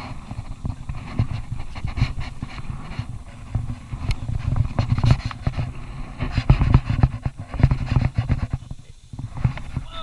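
Scrambling up a limestone rock face: irregular scrapes, knocks and rustling as hands and body move against the rock and the body-worn camera shifts, over a low rumble.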